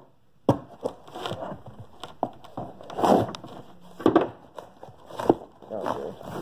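Cardboard shipping box being opened by hand: packing tape being slit and torn and the cardboard flaps crackling and rustling, in irregular scratchy bursts with a few sharp clicks.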